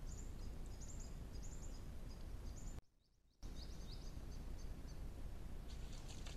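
Trail camera's own microphone hiss and low rumble, with a run of short, high chirps several a second. The sound cuts out for about half a second near the middle where two camera clips are joined, and near the end a louder rush of noise comes as the sambar deer's muzzle splashes in the muddy wallow.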